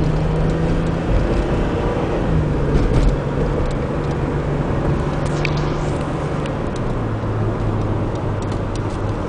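A car driving, heard from inside the cabin: a steady engine hum over road and tyre noise. The hum steps lower about two and a half seconds in and drops again about seven seconds in.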